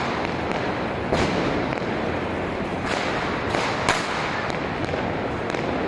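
Fireworks and firecrackers going off in a continuous crackle, with sharper bangs about a second in and several more around three to four seconds in.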